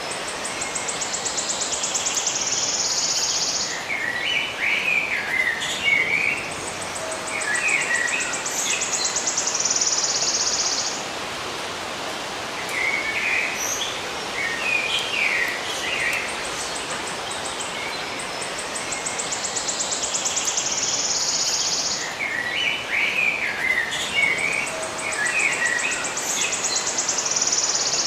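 Birds singing: clusters of short, quick chirping notes alternate with a high, buzzy trill of about three seconds, which comes four times. The trill starts as rapid pulses and then turns steady. A steady hiss runs underneath.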